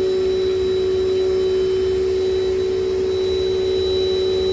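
Dirt Devil Dynamite upright vacuum cleaner's 7-amp motor running steadily with a constant whine over a low rumble.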